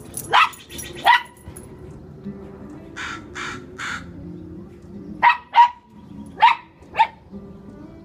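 Small dog barking, six short, sharp barks: two near the start and four in quick succession from about five seconds in. Three harsher, noisier calls come in between, around three to four seconds in.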